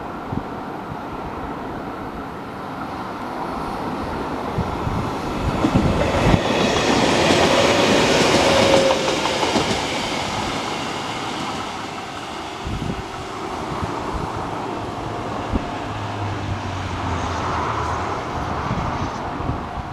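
Trains running through a small station: the rolling rumble of wheels on rails from a train passing close, loudest about six to nine seconds in, while a second train approaches.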